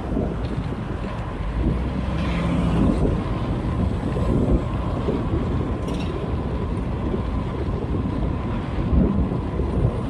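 Steady rumble of wind and road noise on the microphone of a moving bicycle in traffic, with a single sharp click about six seconds in.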